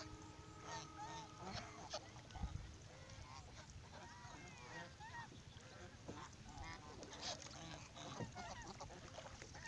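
A flock of domestic geese honking, with many short calls overlapping one another.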